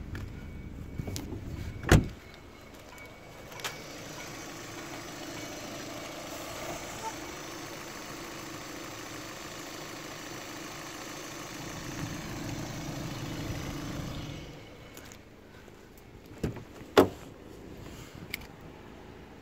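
Opel Z16XEP 1.6 16-valve four-cylinder Ecotec petrol engine idling steadily, its hum dropping away about fourteen and a half seconds in. A loud knock comes about two seconds in, and two more sharp knocks come near the end.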